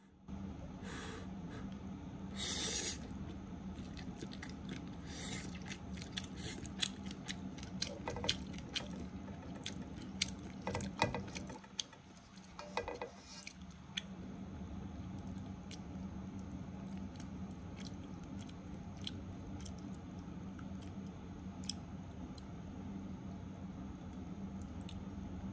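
Spaghetti stir-frying in a pan, sizzling steadily with a low hum underneath and many scattered crackles and clicks throughout.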